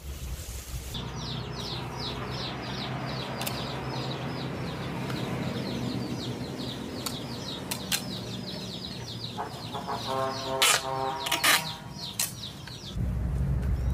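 A small bird chirps over and over in quick, even high chirps, about three or four a second. A chicken calls briefly about ten seconds in, and two short, loud rasping noises come just after.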